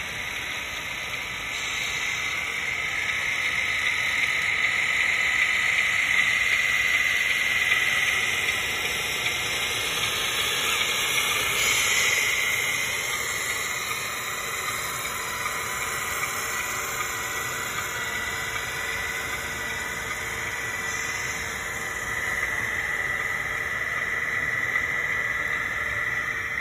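1:14 scale RC tractor-trailer's electric motor and gearbox whining steadily as it pulls a heavy lowboy load at crawling speed. The whine drifts up and down in pitch and loudness, peaking about halfway through.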